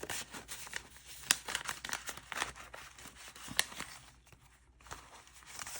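Paper and plastic rustling and crinkling as binder pages, envelopes and laminated trackers are handled, with scattered light clicks and taps; it dies down for a moment near the end.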